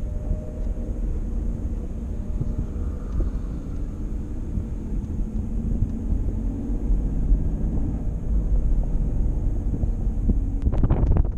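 Car engine and road rumble heard from inside the cabin as the car drives slowly, the engine note rising and falling a little. Near the end, wind starts buffeting the microphone in quick gusts.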